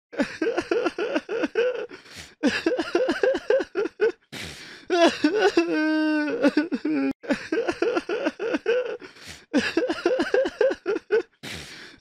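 A person crying: runs of quick, stuttering sobs, broken by a drawn-out wail about halfway through, after which the sobbing starts again.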